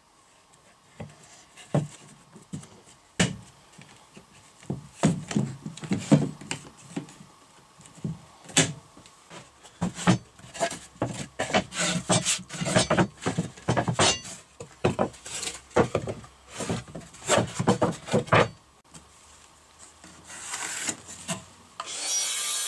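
Wooden boards being handled on a wooden workbench: many irregular sharp knocks and clacks of wood on wood as the boards are set down, turned over and flipped, with some sliding and rubbing between them.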